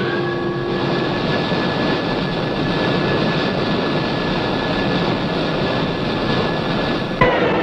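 Dramatic film-score music: a held high note over a dense, rumbling roll, broken by a sudden sharp hit about seven seconds in.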